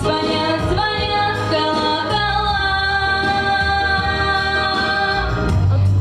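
A woman singing a song over instrumental backing, holding one long note for about three seconds in the middle.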